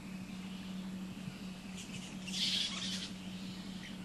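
A fruit bat giving one short squeaky screech about two and a half seconds in, over a steady low hum.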